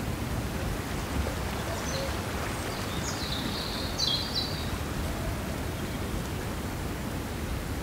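Steady rushing of a rocky mountain river, with a short run of bird chirps about three to four seconds in.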